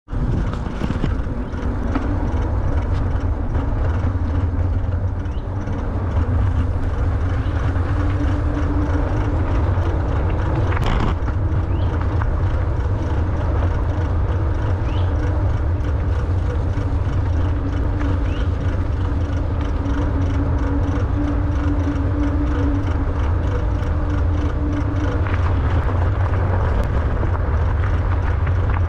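Steady low rumble of wind buffeting the microphone and fat knobby tyres rolling over the trail, riding a WALLKE X3 Pro fat-tyre electric bike. A faint hum comes and goes, and there is one sharp knock partway through.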